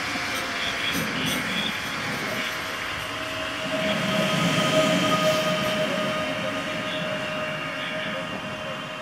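PESA Elf electric multiple unit moving slowly along the platform: a whine, typical of electric traction motors, that sinks a little in pitch at first and then holds steady, over wheel and rail rumble.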